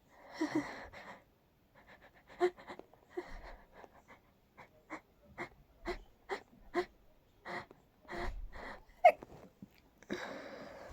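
A person holding back sneezes: a breathy inhale, then a quick run of short, sharp stifled sneezes, the sharpest about nine seconds in, followed by another long breathy breath near the end.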